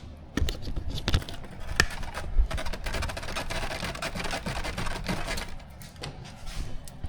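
Small plastic kit parts being handled and fitted: a busy run of clicks, taps and rustles, dying down about five and a half seconds in.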